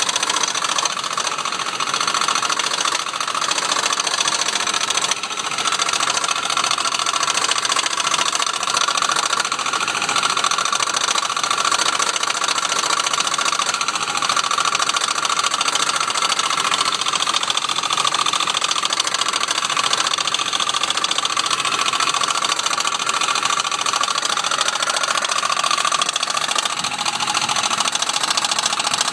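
1993 Jeep Grand Cherokee engine running with a loud, steady whine over a busy mechanical whirr from the belt area, which the owner takes for a belt noise problem.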